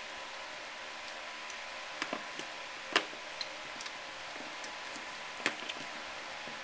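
Gloved hands shifting tire balls around inside a sport ATV tire: scattered soft knocks and clicks of rubber and valve stems, the sharpest about halfway through and another near the end, over a steady background hiss.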